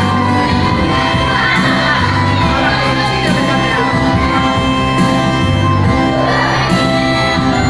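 Church worship band playing a song with voices singing along, over held bass notes that change every second or so.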